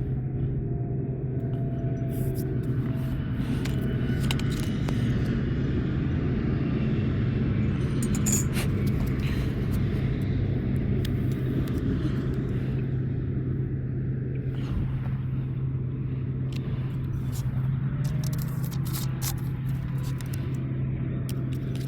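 A machine's engine or motor running steadily with a constant low hum, with scattered light clicks and knocks over it.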